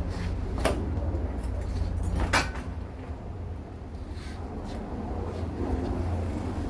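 Tools and parts being handled during work on a motorcycle's rear wheel and brake caliper: two sharp knocks about a second and a half apart and a few fainter ticks, over a steady low hum.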